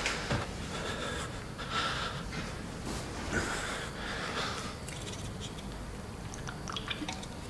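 A man breathing heavily, a run of slow, audible breaths about a second apart, then fading off; he is unwell after cutting down his drinking.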